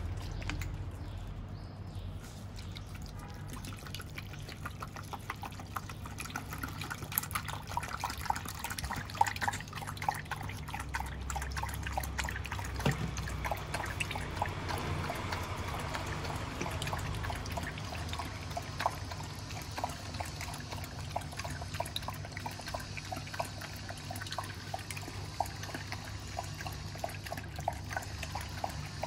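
Dogs lapping milk from a plastic bowl: a rapid, uneven run of wet licking clicks that starts a few seconds in.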